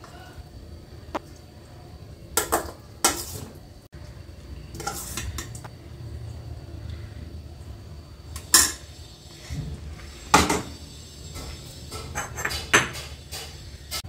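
A steel serving spoon clinking and scraping against a stainless steel pan and a ceramic plate as food is dished out: irregular sharp clinks, a few much louder than the rest, with a quick run of them near the end.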